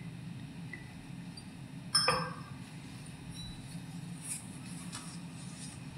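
A single sharp clink of altar vessels, glass or metal touching the chalice, about two seconds in, ringing briefly. It is heard as the chalice is prepared with wine and water. A few faint light ticks follow.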